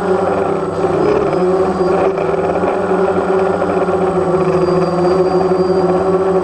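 DJI Phantom quadcopter's motors and propellers buzzing steadily, with a brief dip in pitch about a second in as the throttle shifts.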